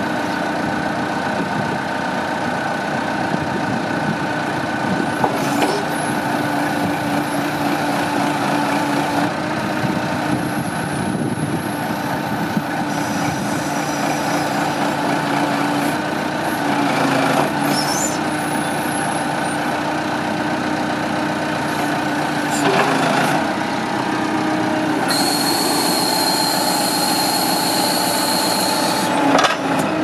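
Massey Ferguson 50HX backhoe loader's diesel engine running under load while the backhoe boom and bucket are worked by the hydraulics, with a few short knocks and a high steady hydraulic whine for a few seconds near the end.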